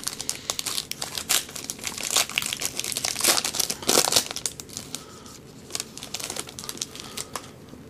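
Foil wrapper of a 2010 Topps Triple Threads card pack being torn open and crinkled by hand: a dense run of crackles, busiest in the first four seconds and thinning out after about five.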